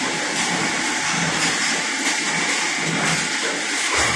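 Steady noisy din of factory machinery in a mattress-spring plant, with no clear rhythm.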